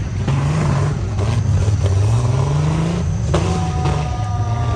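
Off-road 4x4 engine revving, its pitch climbing over a couple of seconds. Three and a half seconds in, a long, slowly falling tone joins it.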